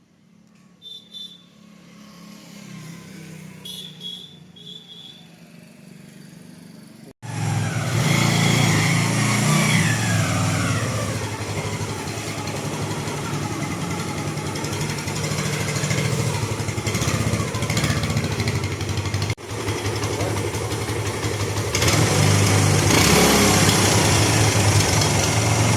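Bajaj Avenger motorcycle's single-cylinder engine running. It is faint at first, then loud from about 7 seconds in, with a short break near 19 seconds.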